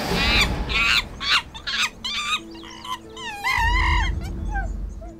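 A run of shrill, wavering animal cries, about eight short calls bending up and down in pitch, over a held low music drone. A low rumble comes in during the second half.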